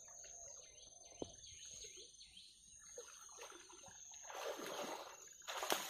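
Water sloshing and splashing as a man wades through shallow river water toward the bank, carrying a gill net. The splashes grow louder over the last two seconds, and faint bird chirps come before them.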